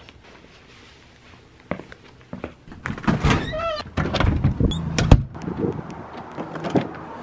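A storm door's latch clicking as it is worked, a short falling squeak as the door opens, and a loud, sharp door thud about five seconds in, followed by lighter clicks and knocks.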